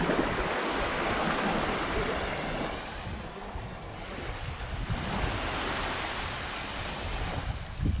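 Small waves washing up onto a sandy beach, the hiss of the surf swelling twice, with wind buffeting the microphone.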